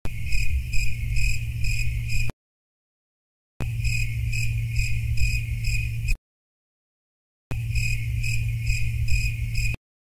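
Cricket chirping in an even pulse of about two to three chirps a second over a steady low hum, the sound cut off abruptly twice with dead silence between the pieces.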